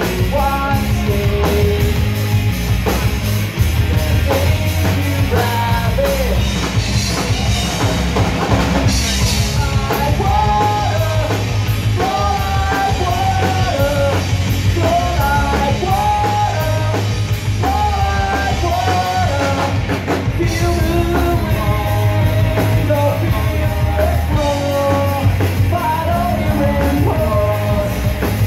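Live rock band playing loudly with electric guitar, bass and drum kit, a man singing lead over it.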